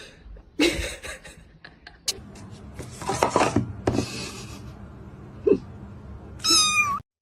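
Domestic cat giving one short, high, wavering meow near the end, after scattered bumps and rustling noises.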